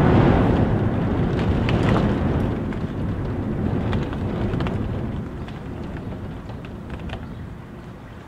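A gust of wind rumbling around a house, loudest at the start and dying away steadily, with scattered taps of rain.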